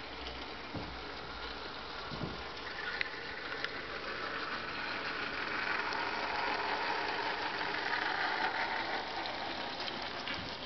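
Model narrow-gauge steam locomotive with a train of ore wagons running along the layout's track. The steady mechanical running noise of motor and wheels swells for a few seconds in the middle and eases off again.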